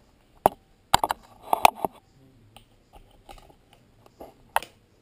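Sharp hard clicks and knocks from a blow dart gun and its plastic plugs being handled: one click, then a quick run of about six within the next second, fainter ticks, and one loud click near the end.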